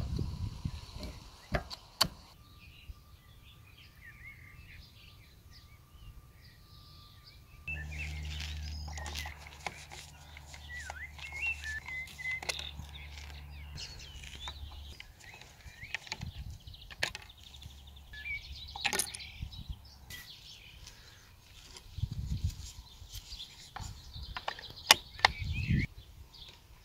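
Small birds chirping and singing, with scattered light clicks and taps of a screwdriver working small screws on an air shotgun's body.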